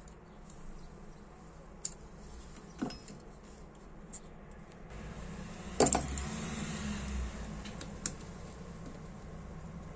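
Scattered small metal clicks and taps from the parts of a Ronson Comet lighter being handled and fitted together with a screwdriver. The loudest click comes about six seconds in and is followed by a low rumble lasting a couple of seconds.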